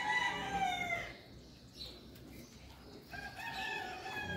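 Rooster crowing twice, about three seconds apart, each crow a drawn-out call of just over a second that sags in pitch at the end.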